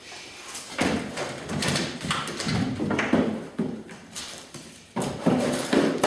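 A dog rummaging through a pile of plastic bags and cardboard: irregular rustling, knocks and scuffing, coming in short uneven bursts.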